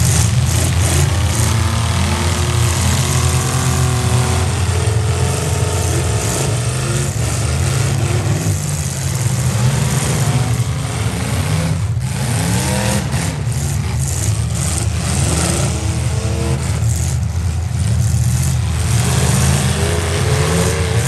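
Demolition derby trucks' engines running hard and revving, several at once, their pitch rising and falling as they accelerate and back off.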